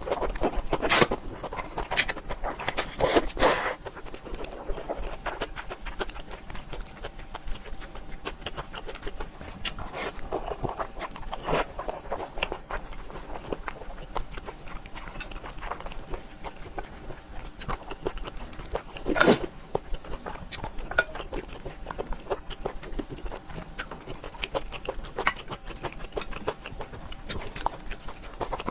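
Close-up eating sounds: a person chewing and biting with irregular wet mouth clicks and smacks, a few louder ones near the start and about two-thirds through.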